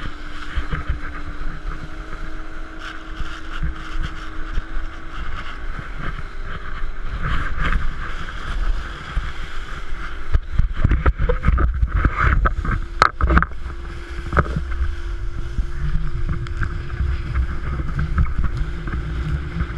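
Wind buffeting a wakeboarder's action camera and water rushing under the board while he is towed at speed behind a motorboat, with the towboat's engine a faint steady hum. About halfway through, a run of sharp slaps and knocks as the board crosses the boat's wake.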